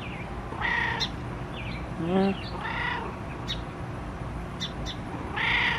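A domestic cat meowing: three short calls about two seconds apart, with a lower, shorter call between the first two.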